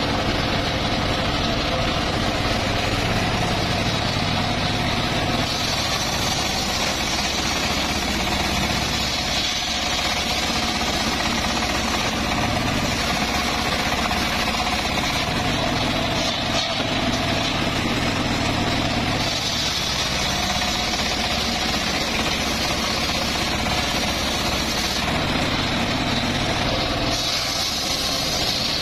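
Homemade bench circular saw running steadily as its blade rips lengthwise through logs, a continuous loud mechanical noise.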